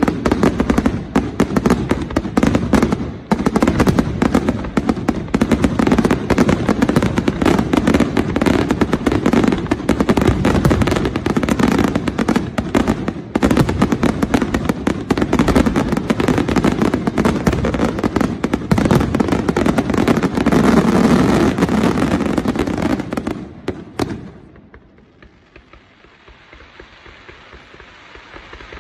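Fireworks display: a dense, rapid run of bangs and crackling from aerial shells bursting overhead. It cuts off abruptly a little before the end, leaving a much quieter steady noise.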